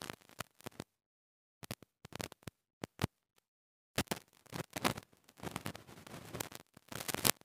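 Faint, scattered clicks and crackles on a clip-on microphone, with stretches of dead silence between them and thicker crackling in the second half.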